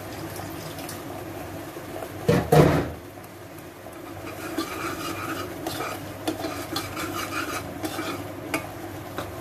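A steel ladle stirring thick masala gravy in a pressure cooker pot: two loud knocks of the ladle against the pot about two seconds in, then scraping with light clinks as the stirring goes on.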